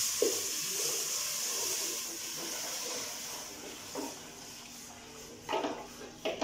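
Milk poured into a hot aluminium pot of ghee-roasted semolina, sizzling with a loud hiss that slowly dies down over a few seconds. Near the end a wooden spoon knocks a few times against the pot.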